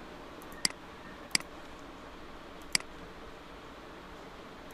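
Computer mouse clicking: three sharp single clicks, the last after a pause of over a second, over a low steady hiss.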